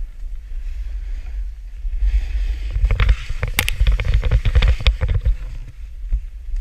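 Snowboard sliding and scraping over hard-packed snow, with steady wind rumble on the action camera's microphone. About three seconds in the noise swells into a flurry of sharp scrapes and knocks of board and body against snow as the rider is thrown off balance, then settles back to the steady slide.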